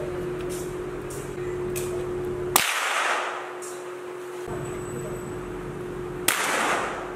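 Two rifle shots about three and a half seconds apart, each a sharp crack followed by a short echo around the range.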